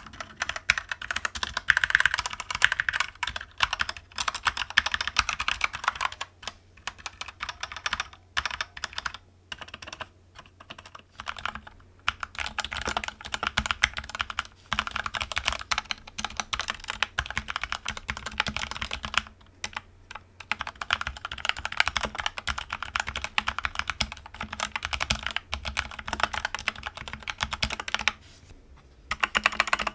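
Keychron K2 mechanical keyboard being typed on in fast, continuous bursts of key clicks with short pauses. For roughly the first ten seconds it is the stock keyboard. After that it is the same keyboard with its switches lubed with Krytox 205/105, a foam dampening mat added and its stabilizers adjusted, the work meant to make it quieter and better sounding.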